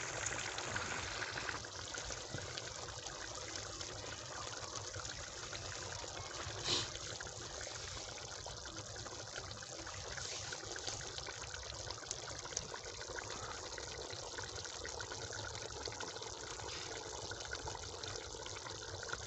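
Chicken karahi curry bubbling steadily at a boil in a large aluminium pot, with one sharp knock about seven seconds in.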